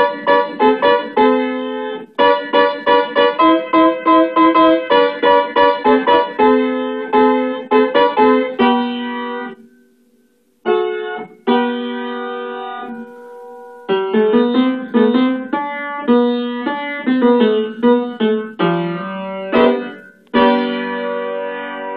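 Upright piano played with both hands: a fast, even pattern of repeated notes, about four a second, that dies away to a brief pause about ten seconds in. It then resumes with held chords and further runs of notes, ending on a sustained chord.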